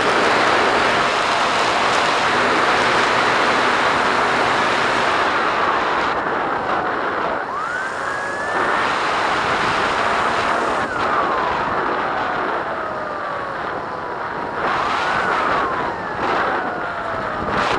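Air rushing past a Bixler foam model plane's onboard camera, with the whine of its electric pusher motor and propeller sliding up and down in pitch as the throttle changes. The rush eases a little about six seconds in, and the pitch glides stand out more after that.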